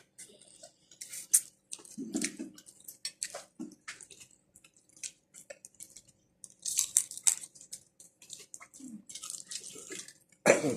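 Close-up eating sounds from a seafood meal: a run of wet lip smacks and sucking clicks as creamy shrimp and crab are eaten, with a few short low hums.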